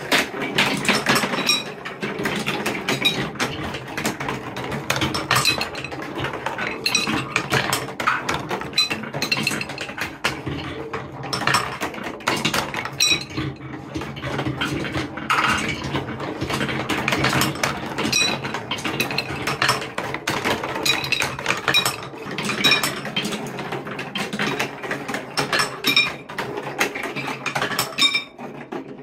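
Many balls rolling and clattering down a TrixTrack marble run's wooden and plastic track, a dense unbroken stream of clicks over a steady rolling rumble.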